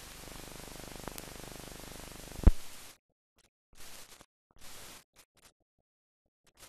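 Steady hiss of a blank film soundtrack, with a faint tick about a second in and a sharp, loud click about two and a half seconds in. The hiss cuts off at about three seconds, and two short bursts of hiss and a few faint ticks follow.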